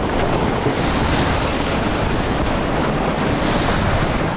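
Steady wind buffeting the microphone over the rush of water and bow spray along the hull of a J/70 sailboat moving fast in a strong breeze.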